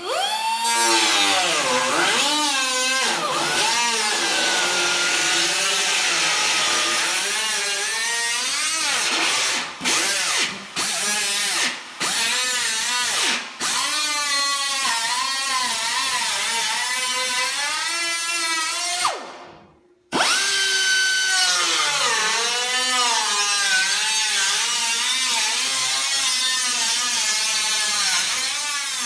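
Hand-held cutoff wheel slicing through the sheet-steel fender of a 1953 Chevy pickup: a high whine that dips and rises in pitch as the disc bites into the metal. It cuts out briefly a few times around the middle, then winds down and starts again about two-thirds of the way through.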